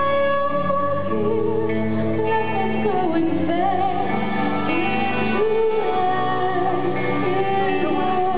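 A woman singing lead with a live band, holding long notes over the accompaniment, recorded from among the concert audience.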